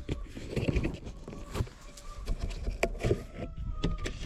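Scattered light knocks and clicks, with a faint steady tone in the last second.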